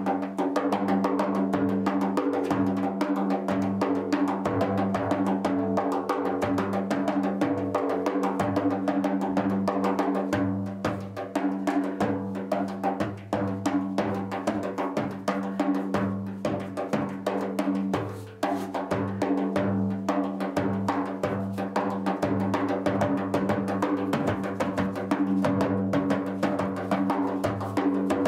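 Live improvised percussion: a rapid, dense run of drum and percussion strokes over a sustained drone of a few steady ringing tones.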